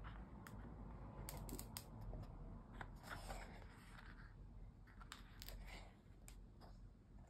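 Faint paper handling: the cover and pages of a softcover zine being turned by hand, with several crisp clicks and a short rustle of paper in the middle.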